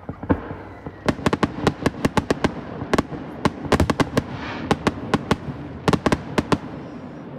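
Aerial fireworks display: a rapid, irregular string of dozens of sharp bangs from shells bursting overhead, with a short spell of hiss about halfway through.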